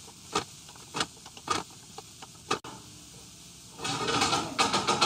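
Wooden spatula scraping and knocking against a stainless steel skillet while stirring shredded Brussels sprouts. A few separate strokes come first, then a run of quicker scrapes near the end.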